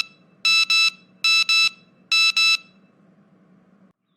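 Telephone beeping after the call is hung up: short double beeps, a pair about every 0.8 s, that stop a little over halfway through, over a faint low hum.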